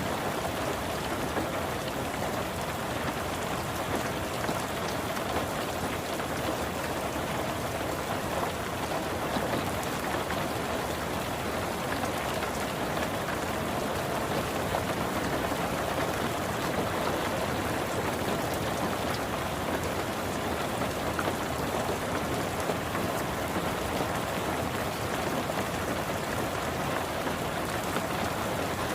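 Steady rain falling on a car's roof and windows, heard from inside the cabin: a continuous dense hiss of drops with no change in strength.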